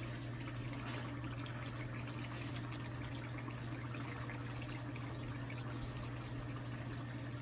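Chicken pieces in a thick sauce simmering on low heat in a pan, stirred and turned over with a wooden spatula, giving soft wet stirring and simmering sounds over a steady low hum.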